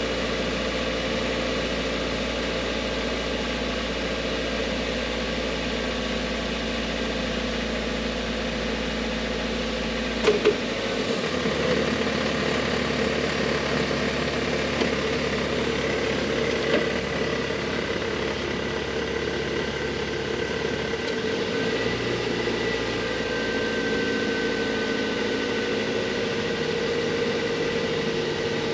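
2004 Toyota Corolla's 1.8-litre four-cylinder engine idling steadily, with a sharp double knock about ten seconds in.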